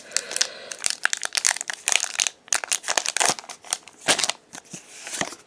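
Foil wrapper of a Pokémon trading card booster pack crinkling and tearing as it is opened, a fast run of sharp crackles.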